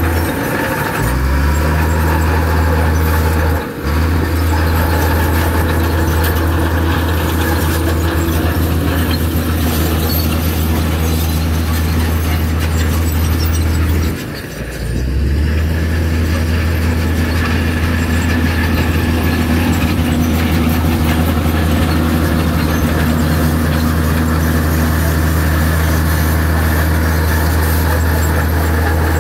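Heavy bulldozer diesel engine running steadily with a deep drone. It dips briefly twice, about four seconds in and about halfway through, and its note shifts just after each dip.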